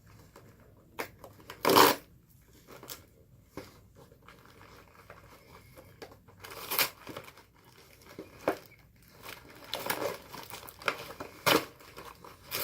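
Snack packaging being handled and opened: irregular crinkling and tearing bursts, the loudest about two seconds in.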